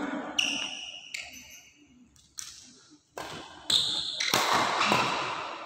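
Badminton doubles rally: racket strikes on the shuttlecock and court shoes squeaking on the floor, with a louder, noisy stretch a little past four seconds in.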